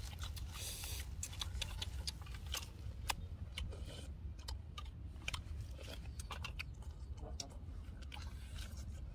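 Two people eating roasted duck by hand: chewing, lip smacks and meat being torn from the bone, heard as many small irregular clicks. A steady low rumble runs underneath.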